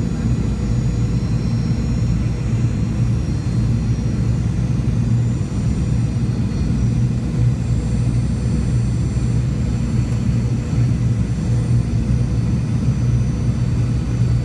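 Steady cabin drone of a Boeing 717-200 on final approach: its rear-mounted Rolls-Royce BR715 turbofans and the airflow make a low hum with faint high whining tones.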